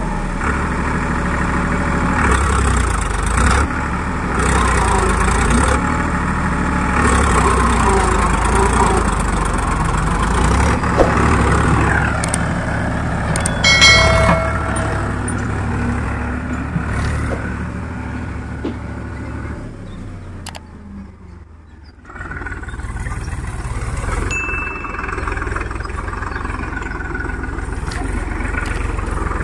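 Tractor's diesel engine running steadily, fading away briefly about three-quarters of the way through before coming back. A short ringing chime sounds about halfway through.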